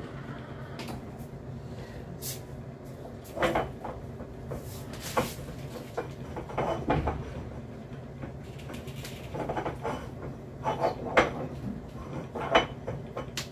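Glass oil dispenser bottles being wiped down and handled on a countertop: scattered knocks and clinks of glass, the two loudest near the end.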